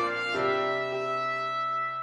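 Brass ensemble music of trumpets, horns, trombones and tuba with piano, playing sustained chords, with a new chord coming in about a third of a second in.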